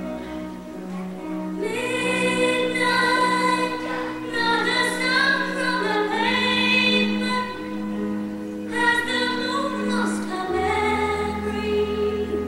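Slow ballad played for a dance routine: sustained accompaniment, then a woman's voice comes in singing the melody about two seconds in, in long held phrases.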